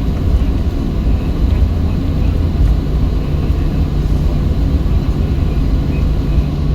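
Cabin sound of a Boeing 737-700 taxiing: a steady low rumble with the even hum of its CFM56-7B turbofan engines at low taxi power.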